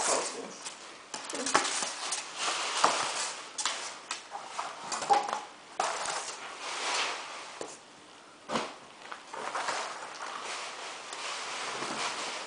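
Irregular rustling, scraping and tapping as flattened cardboard sheets and a long styrofoam strip are handled and moved over a wooden floor.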